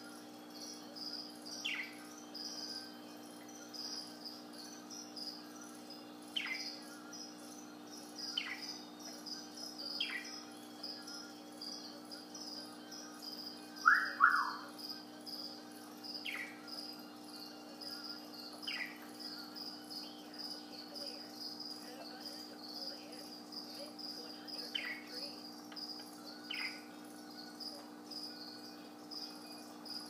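Budgerigar giving short, soft chirps that fall in pitch, one every few seconds, with a louder double chirp about halfway through. A steady, rapidly pulsing high trill and a low hum run underneath.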